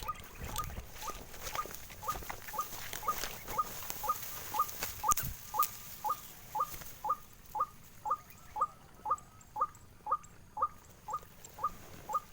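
White-breasted waterhen calling: a short falling note repeated evenly about twice a second, growing louder a few seconds in. There is faint clicking rustle in the first few seconds.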